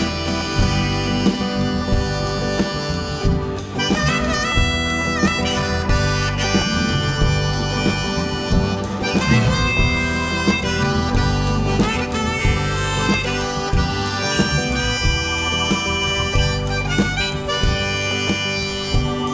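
Live rock band playing an instrumental break, with a harmonica soloing in bent, wailing phrases over the band's backing.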